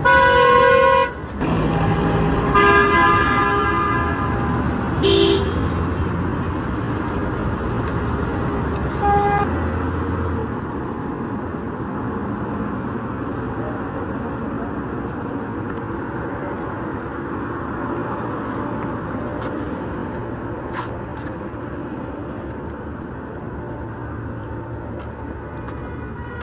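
Road traffic with car horns honking: several horn blasts in the first ten seconds, the first two the longest and loudest, then a steady hum of passing vehicles.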